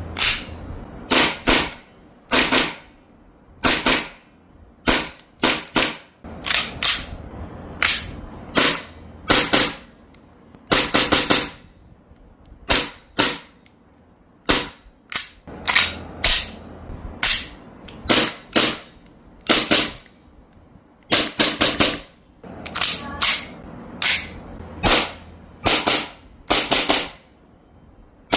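Gas blowback airsoft pistols dry-fired with no BBs loaded. Each shot is a sharp crack of gas and the slide cycling. The shots come singly and in quick strings of two to four, with short pauses between.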